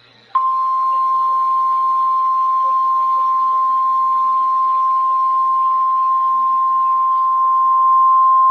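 NOAA Weather Radio warning alarm tone: a single steady 1050 Hz beep that starts about a third of a second in and holds unbroken, signalling that a weather alert message follows.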